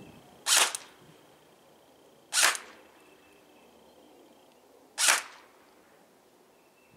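Three single shots from a 420 FPS Lancer Tactical airsoft rifle at a shield built on a plastic trash-bin lid. Each shot is one short, sharp snap, and they come about two to two and a half seconds apart.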